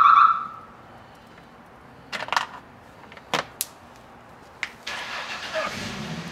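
A steady electronic beep cuts off just after the start, followed by a few sharp plastic clicks and clacks from a pickup's rear door trim panel and handle bezel being worked loose by hand. Near the end, close fabric rustling as a shirt brushes the microphone.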